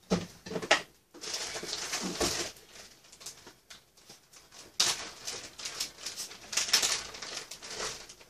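Thin plastic bag rustling and crinkling as it is handled, in two longer stretches, with a few light knocks at the start.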